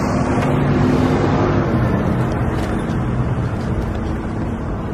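Street traffic: a motor vehicle's engine running close by with a steady low hum over road noise.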